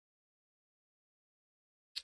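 Silence: the sound track is fully muted, with one brief click right at the end.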